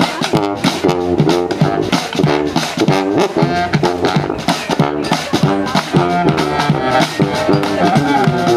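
Small street-style band playing a tune together: baritone saxophone, tuba, accordion, bass clarinet and drums. Short, repeated low horn notes bounce over a steady drum beat.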